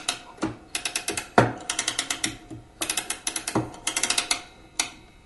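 Bursts of rapid mechanical clicking, ratchet-like, with a few low thumps among them; the clicking stops shortly before the end.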